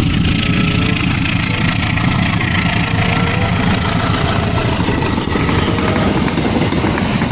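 Engine of a KAI CC201 diesel-electric locomotive running loudly and steadily as it passes close by, hauling passenger coaches.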